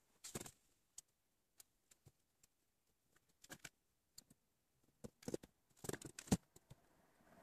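Faint clicks and rustles of wires and a small circuit-board module being handled by hand: scattered light taps, with a cluster of louder clicks about five to six seconds in.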